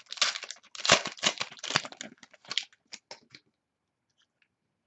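Foil wrapper of a football trading-card pack being torn open and crinkled by hand: a dense run of crackling for about two seconds, thinning to a few scattered crinkles.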